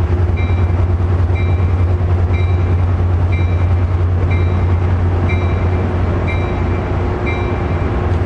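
Diesel locomotive engine idling with a steady low throb, while a short high ding repeats about once a second.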